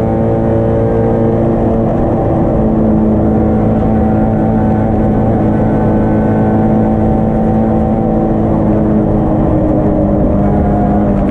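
Yugo race car's engine running hard under way, heard from inside the stripped cabin. Its pitch holds mostly steady, with a brief dip about two seconds in.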